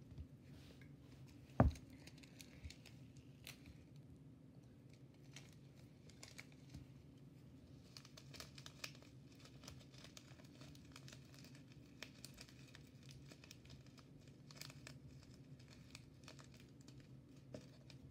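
Small plastic packets crinkling faintly as they are handled, with one sharp knock about a second and a half in.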